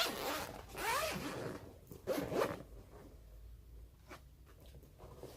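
Main zipper of a Pakt One travel bag being pulled open, in two zipping runs over the first two and a half seconds, then quieter handling of the bag.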